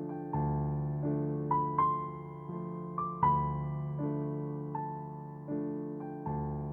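Background music: a soft piano or electric piano playing slow chords, each struck and left to fade, with a few higher melody notes in the middle.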